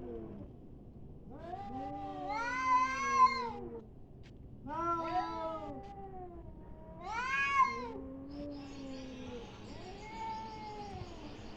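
Cats yowling and caterwauling in a fight: about five long, wavering howls, the cries overlapping at times, loudest about three seconds in and again near the middle. A hiss-like noise rises under the last few seconds.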